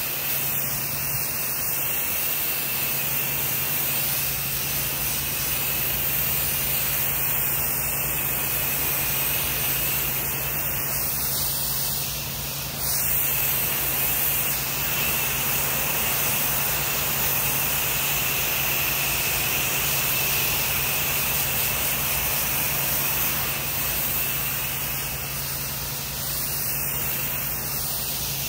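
Pressure washer wand spraying a high-pressure water jet onto a concrete patio, a steady hiss over a steady low hum of the machine. The spray dips briefly about twelve seconds in.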